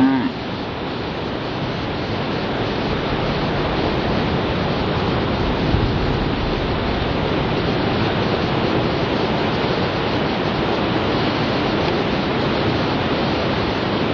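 Ocean surf surging and breaking through a sea cave: a steady, loud rush of churning whitewater.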